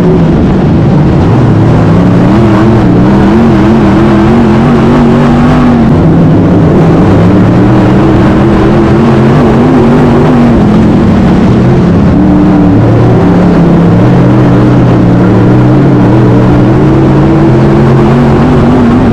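Race car engine running hard and continuously, its pitch rising and falling every few seconds as the throttle comes on and off.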